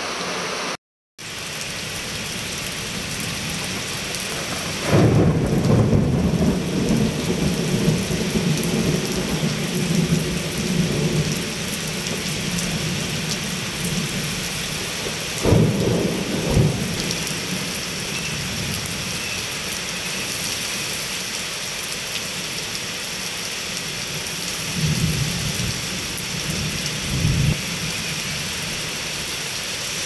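Heavy rain pouring steadily in a thunderstorm, with deep rolls of thunder about five seconds in, again around fifteen seconds, and once more near the end. The sound drops out for a moment about a second in.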